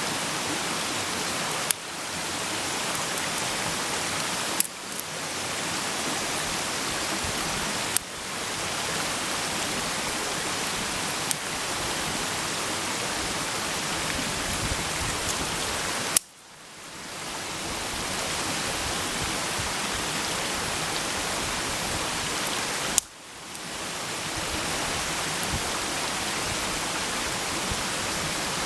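Food sizzling in a pan over a campfire: a steady hiss, with about six sharp pops scattered through it, the two loudest about 16 and 23 seconds in.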